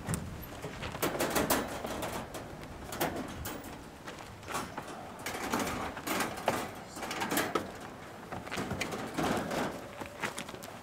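Wire kennel crate rattling and clinking, with irregular knocks, as its door and latches are worked by hand.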